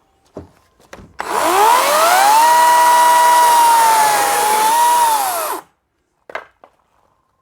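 Chainsaw motor speeding up with a rising whine about a second in, running at speed for about four seconds, then winding down and stopping. A few short knocks come before and after it.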